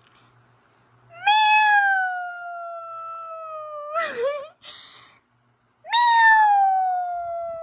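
A person imitating a cat with two long, drawn-out meows, each slowly falling in pitch, with a short wavering sound between them.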